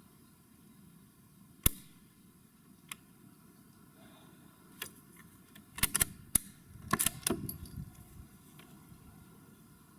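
Metallic clicks and clacks from an 8mm Mauser bolt-action rifle being handled. There is one sharp click about two seconds in, then a run of quick clicks and clatter from about five to seven and a half seconds.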